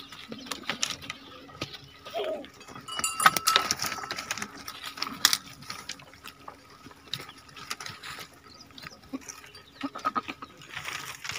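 Goats in a pen: scattered knocks and clinks, with a short faint call about two seconds in.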